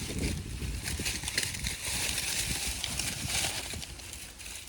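Footsteps crunching through dry harvested corn stubble and husks, with irregular crackles and low rumble.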